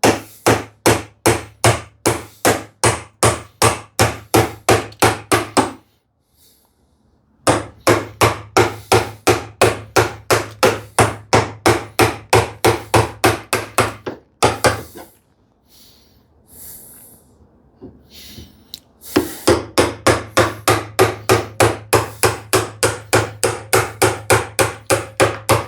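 A chisel being struck in quick, even blows, about three or four a second, chopping waste out of poplar down to a curved layout line. The blows come in three long runs, with a short pause after the first run and a longer one after the second.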